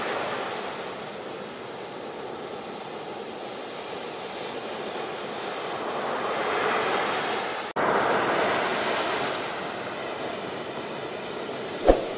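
Muddy flash-flood torrent rushing: a steady, noisy wash of water that swells and eases. The sound cuts out for an instant about two-thirds of the way through, and a single sharp knock sounds near the end.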